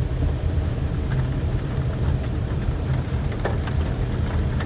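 Vehicle engine and tyre noise while driving over freshly laid, still-sticky asphalt: a steady low drone.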